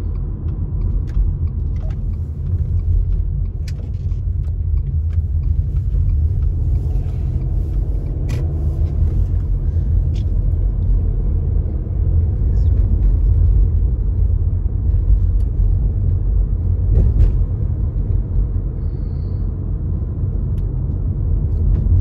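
Steady low rumble of a car being driven, road and engine noise heard from inside the cabin, with a few faint clicks.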